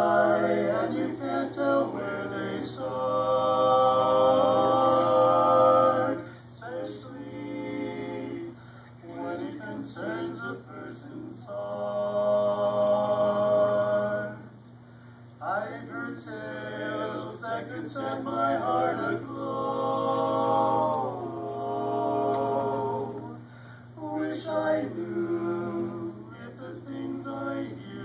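A male vocal quartet singing a cappella in harmony: sustained chords in phrases a few seconds long with short breaths between them, over a steady low hum.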